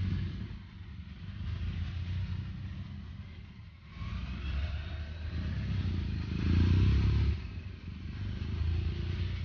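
A string of BMW motorcycles riding past at low speed, one after another, their engines running with a low rumble that swells as each bike passes and fades again, loudest about seven seconds in.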